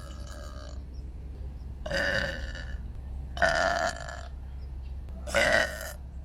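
A person burping loudly three times, each burp lasting about half a second, spaced a second and a half to two seconds apart.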